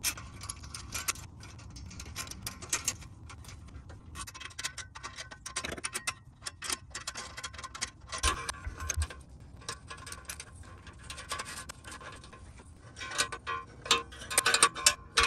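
Small metallic clicks and clinks of a U-bolt exhaust clamp being fitted around a muffler joint, its nuts run down on the threads by hand and with an open-end wrench. The clicking is irregular, and it comes thick and fast near the end.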